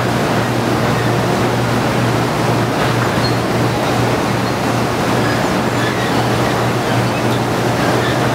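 Sugar cane factory machinery running with a loud, steady noise and a constant low hum underneath.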